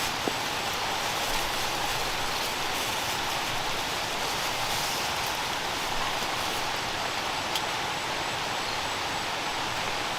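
Steady rain falling: an even hiss with no let-up, and a few faint ticks of single drops.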